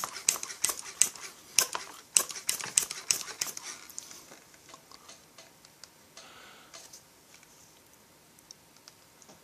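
Hand-operated vacuum pump being squeezed in quick strokes, about three clicks a second, drawing a vacuum on a chainsaw fuel tank through a hose for a leak test. The strokes stop a little under four seconds in, and a brief faint noise follows about two seconds later.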